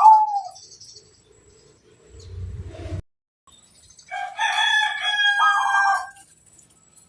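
The last note of a zebra dove's coo in the first half second, a brief low rumble that cuts off suddenly, then about four seconds in a rooster crows once, for about two seconds.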